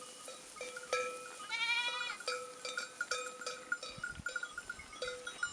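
Bells on a grazing flock of sheep tinkling and clanking irregularly, with one short bleat about a second and a half in.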